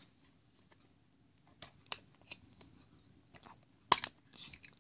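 Hands handling small plastic toy figures and a clear plastic cup: faint scattered clicks and crackles, with one sharper click about four seconds in.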